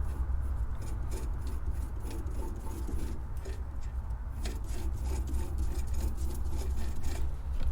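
Pencil scratching and rubbing against a spindle blank of tawa wood as layout lines are marked around it, in faint irregular strokes over a steady low hum.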